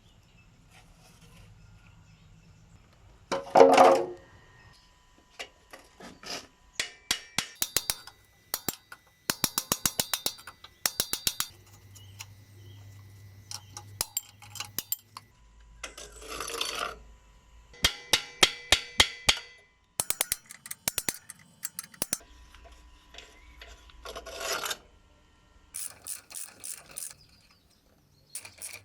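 Hand tools at work on metal motorcycle parts: repeated bursts of rapid clicking, broken by short scraping sounds and one loud knock about three and a half seconds in.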